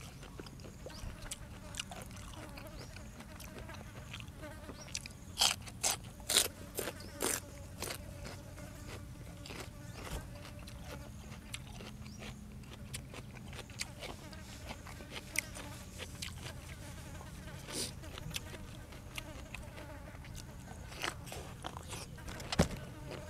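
A fly buzzing steadily close to the microphone, with scattered crisp crunches of eating, a cluster of louder ones about five to seven seconds in and another near the end.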